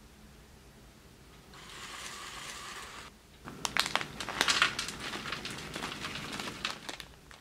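Plastic bacon bits pouch crinkling: a short rustling hiss, then after a brief pause a few seconds of sharp crackles and crinkles.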